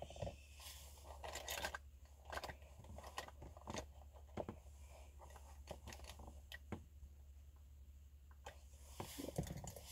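Soft clicks, taps and rustles of makeup items being handled, scattered irregularly, over a steady low hum.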